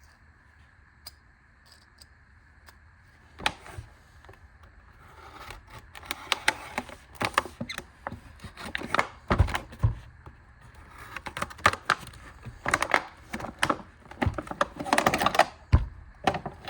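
Packaging being opened by hand: a sharp click about three and a half seconds in, then a busy run of clicks, crinkles and rustles as the box and its contents are handled.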